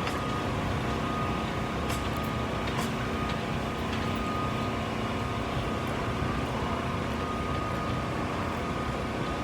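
Steady low rumble with a faint constant hum, like a running vehicle or ventilation, and a few small clicks.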